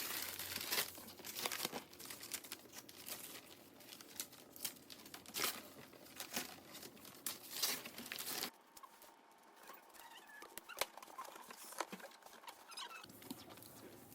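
Packaging being handled and opened, with dense crinkling and rustling. About two-thirds of the way in, the sound cuts off abruptly to quieter handling with scattered light clicks.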